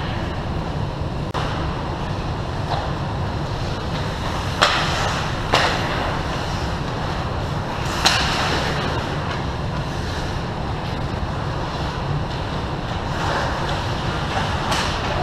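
Ice rink game sound: a steady low rumble, with a few short, sharp scrapes and clacks of skates, sticks and puck on the ice, the loudest about four and a half seconds, five and a half seconds and eight seconds in.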